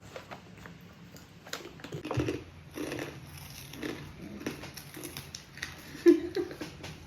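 A small child eating snacks close to the microphone: irregular chewing, crunching and mouth sounds, with the loudest bite about six seconds in.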